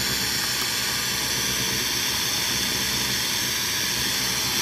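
Steady FM static hiss from a DeWalt jobsite radio's speaker, tuned to 87.50 MHz with no station coming in, which the owner puts down to being too far off the beaten track for FM reception.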